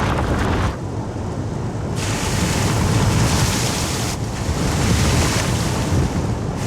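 Loud rushing noise like wind buffeting a microphone, with no clear tone in it, changing character abruptly a few times.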